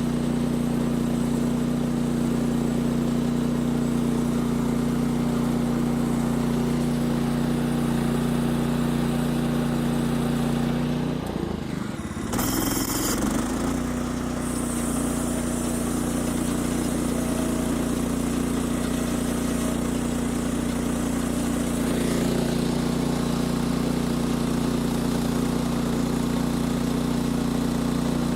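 Gas engine of a Norwood LM29 portable band sawmill running at a steady speed. About twelve seconds in, the sound briefly drops and breaks off with a short hiss, then the same steady running picks up again.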